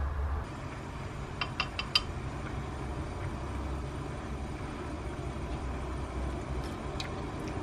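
Steady low rumble of a lit gas stove burner with a pot of stew simmering on it. Four quick light clinks come about a second and a half in, and one more near the end.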